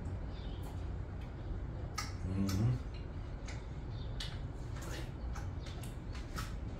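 Scattered soft clicks and smacks of a person eating a piece of watermelon, over a low steady hum, with a brief hummed sound about two and a half seconds in.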